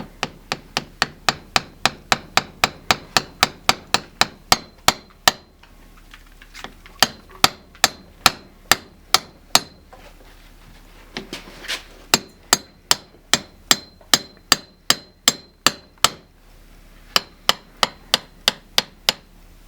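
Rapid light hammer taps on the 2001 Kawasaki KX250 rear shock, about three a second in runs with a few short pauses, each a sharp knock with a brief metallic ring. The taps drive the reservoir's bladder cap down so its circlip can go back into its groove.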